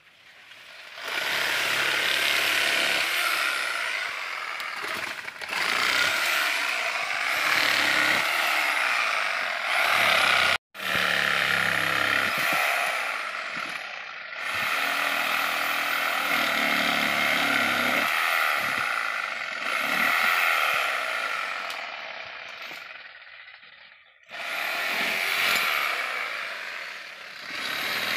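Corded electric saw cutting dry date palm wood. Its motor whine rises and falls as the blade loads and eases. It starts about a second in, cuts out briefly, fades a few seconds before the end and then starts again.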